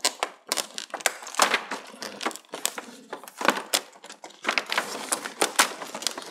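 Irregular crackling and clicking of a TV's plastic backlight reflector sheet being handled and pulled free where it is stuck to the LED strips.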